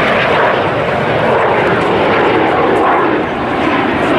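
A pair of BAC 167 Strikemaster jets flying overhead, giving the loud, steady noise of their single Rolls-Royce Viper turbojet engines.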